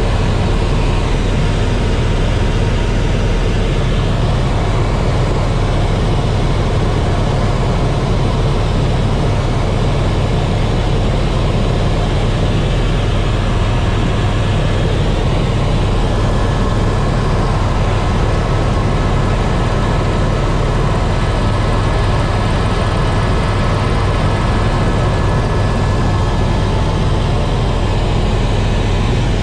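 Tour helicopter running steadily, heard from inside the cabin: a constant low drone of rotor and engine that holds the same level throughout.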